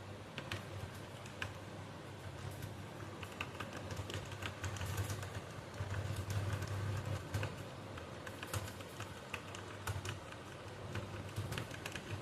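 Typing on a computer keyboard: fast, irregular keystrokes clicking in quick runs, busiest around the middle.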